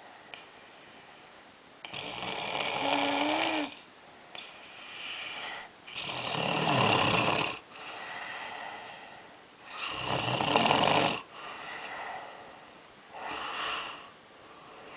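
A person snoring in their sleep: four loud snores roughly every four seconds, with softer breaths between them. The uploader puts the snoring down to obstructive sleep apnea.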